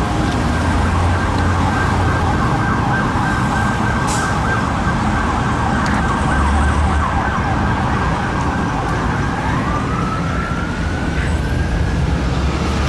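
Fire engine sirens wailing, one holding a steady high tone while another rises in pitch over a few seconds near the end, over the low rumble of the trucks' engines.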